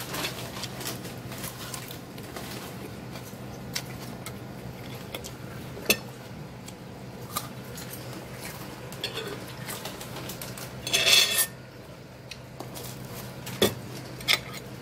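Metal fork clinking and scraping against a ceramic plate as salad is eaten: scattered light clicks, and one longer, louder scrape about eleven seconds in.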